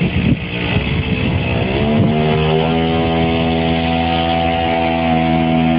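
Small petrol engine on a motorized wheelbarrow running unevenly at first, then revving up about two seconds in and holding a steady, high running note as the machine pulls away.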